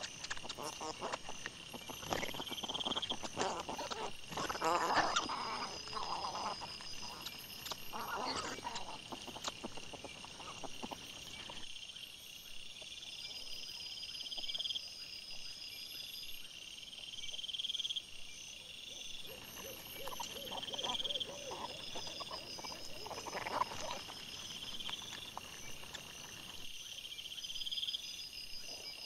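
A night chorus of small calling animals, insects or frogs, chirping in evenly spaced pulses about every two seconds. Over it come the rustling, snuffling and short grunts of wild boar and their striped piglets feeding on the ground, busiest in the first ten seconds and again around twenty seconds in.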